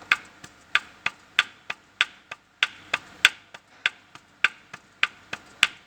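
Ford Sigma engine knocking with sharp, even metallic knocks, about three a second: piston-skirt slap from a worn, undersized piston skirt with excess clearance in its cylinder, the noise of this engine at its first cold start of the day.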